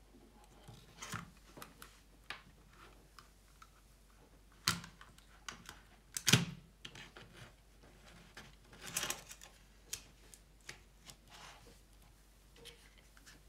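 Scattered light clicks, taps and rustles of hands handling cables and a 3D-printed plastic case on a workbench, with two louder knocks about five and six seconds in.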